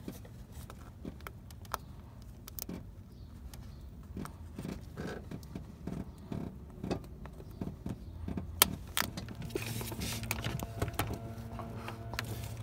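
Small metallic clicks and rattles of a retaining clip being worked onto a transmission cooler line connector by hand, with one sharper click partway through. A steady low hum starts about three quarters of the way in.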